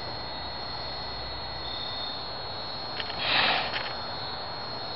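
Steady background hiss with a faint high whine through it, and a short rushing swell of noise a little over three seconds in.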